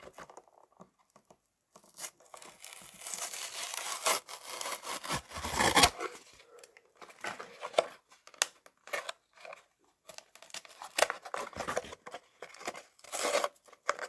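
A toy car's cardboard-and-plastic package being torn open: a long tearing stretch from about two to six seconds in, then scattered crinkles and clicks as the packaging is pulled apart and handled.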